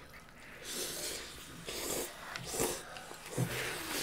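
Birria ramen noodles being slurped: several short drawn-in slurps, with breathing between them.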